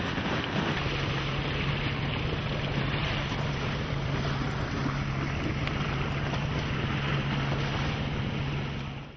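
Dive boat engine running steadily under way, a low even hum coming in about a second in, over the rush of wind on the microphone and water. It all fades out near the end.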